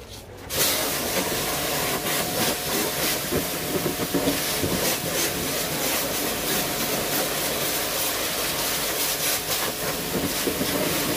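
Pressure washer spraying a jet of water onto the plastic frame of an air-conditioner indoor unit: a loud, steady hiss and splatter that starts about half a second in, with a faint steady hum under it.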